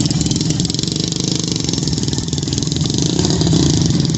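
Race-prepared Jeep Wrangler V8 engine running loud at low revs, a fast, even rumble with no revving, as the drag Jeep rolls slowly across the sand.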